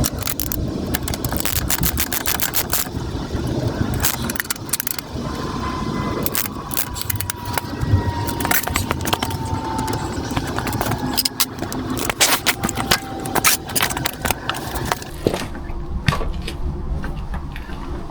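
Irregular metallic clinks and clicks from hand tools and chain parts being handled during motorcycle chain work, over a low rumbling background.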